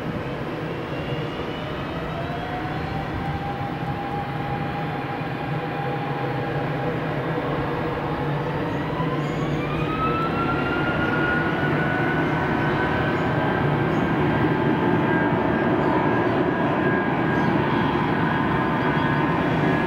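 Boeing 757 jet engines whining as the airliner taxis on the runway. The whine rises in pitch about a second in, then climbs again more steeply around the middle, as the engines spool up. The noise grows steadily louder.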